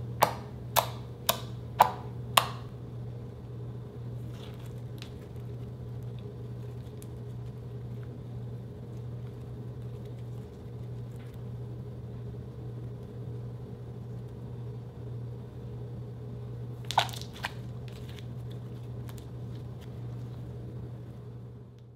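Slime being poked and squished by hand, giving a quick run of five sharp pops in the first two and a half seconds, then soft squishing with faint crackles, and two more pops near the end. A steady low hum runs underneath.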